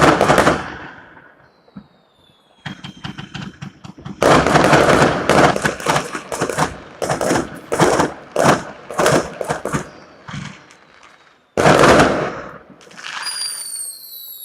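New Year's Eve fireworks going off. A loud bang at the start, then a long run of rapid crackling bangs from firecrackers, and another loud bang about twelve seconds in. Near the end come high whistling tones that slowly fall in pitch.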